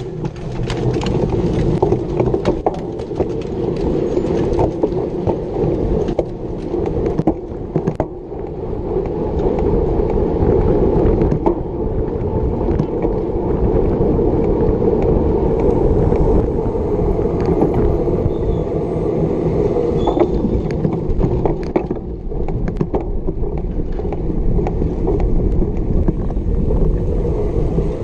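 Riding noise from a cyclocross bike going hard at speed: a steady rush of wind buffeting the bike-mounted camera's microphone, with tyre rumble and frequent rattling clicks from the bike.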